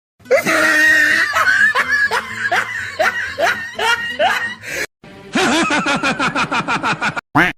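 Comedy sound-effect clips played back to back: a snickering laugh over music for about five seconds, then after a short break a second, faster pulsing laugh, and a brief rising slide near the end.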